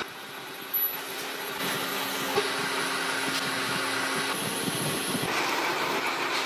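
Workshop machinery running: a steady mechanical noise with a faint high whine through the middle.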